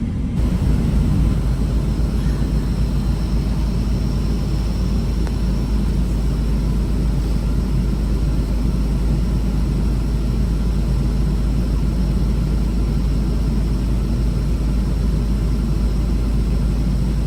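Steady low rumble of an idling semi-truck diesel engine, heard from inside the cab with the air conditioning running.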